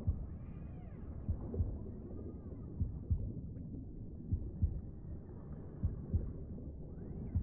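Slow, muffled heartbeat, a double beat about every second and a half, over a steady low underwater rumble, with faint tones that rise and fall above it.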